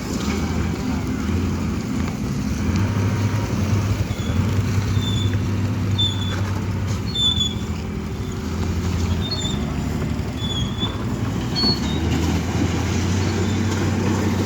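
Diesel engine of heavy road-building equipment running steadily under load, with a series of short high squeaks about a second apart in the middle.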